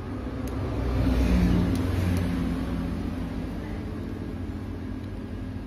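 A motor vehicle's engine running with a low, steady hum that swells about a second in and then slowly fades, with a few faint clicks of small plastic parts being handled.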